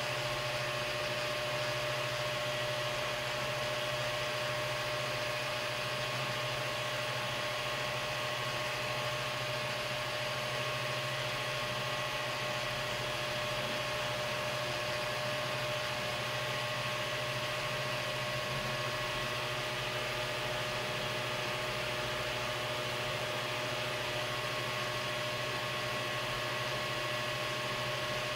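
Ender-3 3D printer printing on a Creality V1.1.5 silent mainboard: its cooling fans give a steady, very noisy whir with a low hum underneath, while the stepper motors stay nearly silent.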